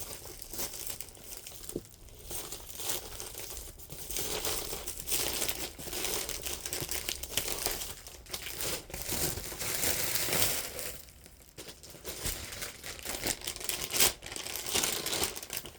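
Packaging crinkling and rustling as a mailed t-shirt is handled and unwrapped, with a few tearing sounds, in a stop-and-go run of short bursts that dies down briefly in the middle.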